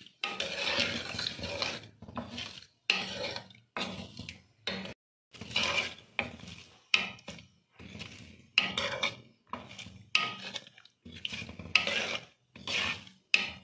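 Wooden spatula stirring and scraping against a metal pan through soaked plums and sugar syrup, in repeated strokes about once a second.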